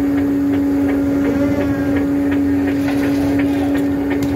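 Tuna seiner's engine and deck machinery running with a steady, loud hum, with light scattered knocks from the deck work.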